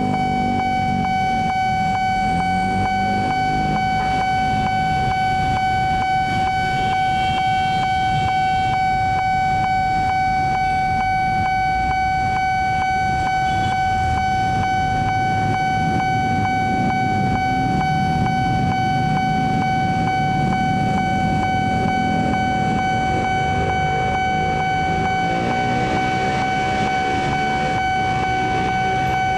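Railway level-crossing warning alarm sounding a steady, rapidly pulsing electronic tone while the barrier is down, over the low running of waiting motorcycle engines. A train's approach starts to build near the end.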